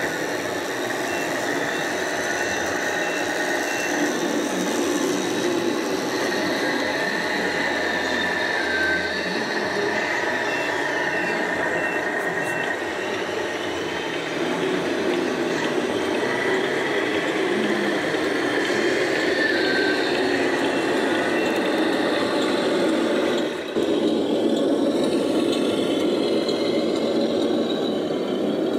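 Electronic sound modules in radio-controlled scale trucks playing steady diesel engine sounds, with a truck's reversing beeper going in three short spells of evenly spaced beeps.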